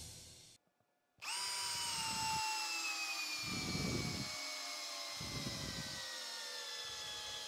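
Bosch GSB18V-1330C cordless hammer drill driving a long lag screw into stacked lumber. It starts a little over a second in with a steady electric-motor whine that falls slowly in pitch as the screw goes in, and low rumbling pulses come from the wood and screw about every one and a half seconds.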